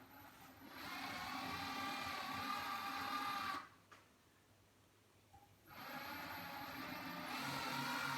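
Copper wire stripping machine's electric motor whining as it runs, cutting out a little over halfway through for about two seconds and then starting up again.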